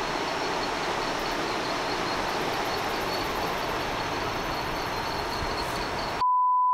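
Steady rush of flowing river water, with a thin, steady high insect buzz above it. About six seconds in, the sound cuts out and a loud, steady censor bleep takes over.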